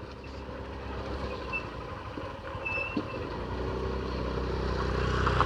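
Motorcycle engine running at low speed on a rough off-road track, growing gradually louder toward the end, with a single light knock about three seconds in.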